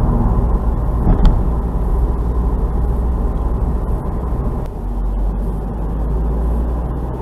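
Steady engine and road noise of a car being driven, heard from inside the cabin, with one short sharp click about a second in.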